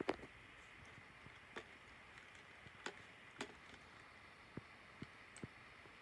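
Near silence: a faint steady hiss with about seven light clicks and taps scattered through, the loudest right at the start.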